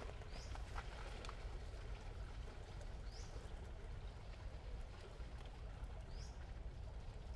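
Forest ambience: a steady low rumble under an even hiss, with a short high call, most likely a bird, repeated three times about three seconds apart.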